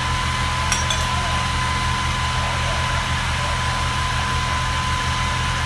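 Engine idling with a steady low rumble and a constant thin high tone above it, with two light clinks about a second in.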